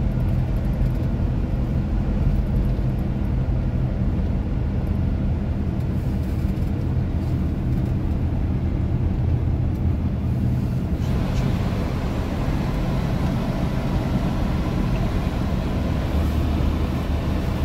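Cab noise of a moving motorhome: a steady low engine drone with tyre noise on a wet road. A higher hiss grows louder about eleven seconds in.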